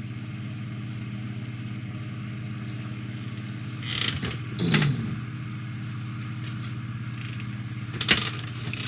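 Brief rustles and clatter as a card-and-foam 3D puzzle ship model is lifted and handled, about four seconds in and again near the end. A steady low hum runs underneath.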